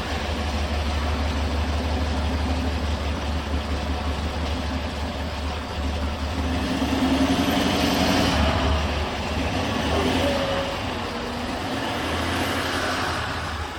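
Range Rover 4.4 TDV8 diesel V8 engine running, with a steady low drone that grows louder and rises a little about halfway through as it is moved. The engine has a misfire.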